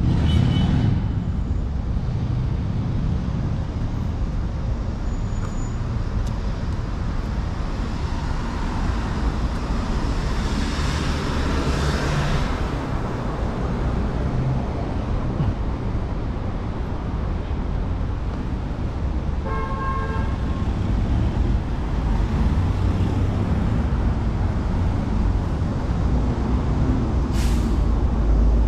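City street traffic: cars running past steadily, one vehicle swelling past about a third of the way in, and a short car horn toot about two-thirds of the way through.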